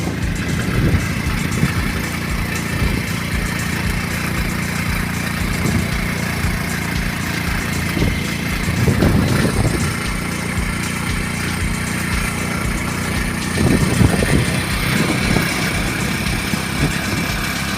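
A motor vehicle's engine running steadily with road noise, as heard while riding along, with a couple of louder low swells about nine and fourteen seconds in.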